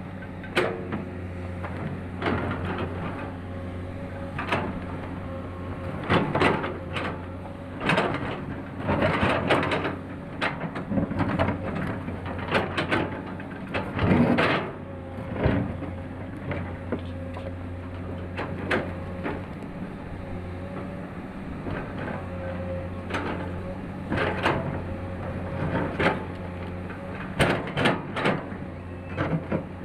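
Excavator's diesel engine running steadily, with frequent irregular knocks, clanks and scrapes of the working machine, the loudest about halfway through.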